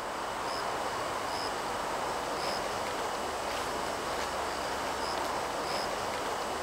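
Forest ambience: a steady rushing hiss of leaves or distant water, with a thin, steady high insect-like drone and a short high chirp repeating about once a second.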